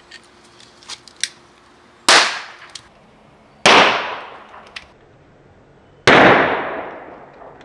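Hydrogen-oxygen (HHO) gas trapped in soap bubbles going off as it is lit with a long-nosed lighter: three sharp bangs, the second about a second and a half after the first and the third about two and a half seconds later, each with a short fading tail. A couple of light clicks come before the first bang.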